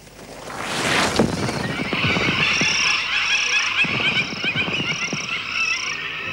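A flock of birds calling and chattering, with a dense stream of overlapping calls and a high note repeated about every half second. The calls open with a rush of noise and fluttering, like wingbeats.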